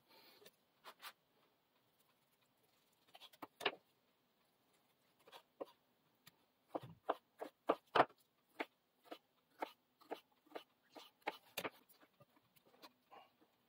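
Folding knife blade (ZT 0566CF) slicing through a tomato and knocking on a wooden cutting board: a quick cluster of clicks, then a run of short knocks about two a second.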